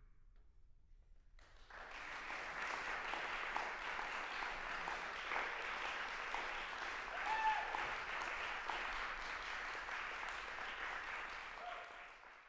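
Audience applause that breaks out about a second and a half in after a quiet pause, stays steady, and dies away at the end.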